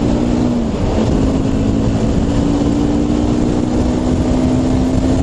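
Motorcycle engine running at a steady cruising speed under a constant loud rush of noise, with a steady engine note that shifts slightly about a second in.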